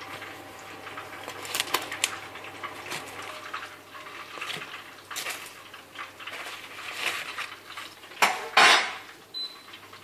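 Metal kitchen utensils clinking and knocking against a pan and dishes while freshly fried spring rolls are handled, with a louder scraping stretch about eight seconds in.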